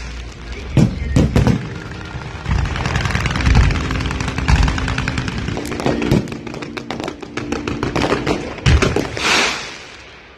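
Fireworks going off: single sharp booms about a second in and again near the end, with a long stretch of dense, rapid crackling between them, over steady music.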